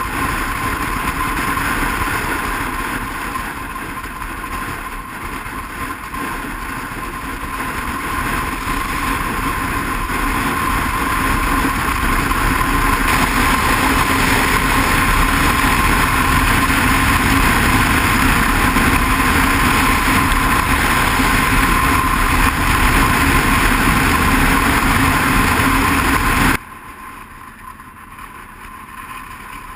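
Motorcycle riding noise at highway speed: wind rushing over the bike-mounted microphone with a steady engine drone, growing louder about halfway through. About 26 seconds in it cuts abruptly to much quieter riding at low town speed.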